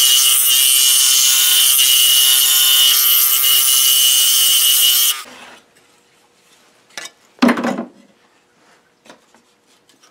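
Scroll saw running and cutting thin wood, a steady buzzing rasp with a high tone, on a blade the woodworker says is getting dull. It stops about five seconds in, followed by a louder knock and a few light clicks as the wood is handled on the metal saw table.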